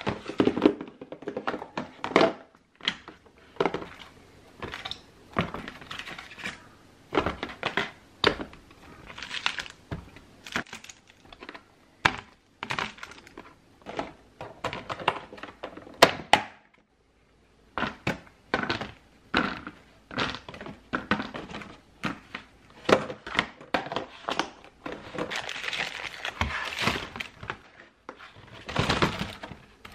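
Plastic food-storage containers and a thin clear plastic clamshell punnet being handled as strawberries are moved between them: irregular hollow knocks, lid clicks and crackling of the thin plastic, with a short pause about halfway through.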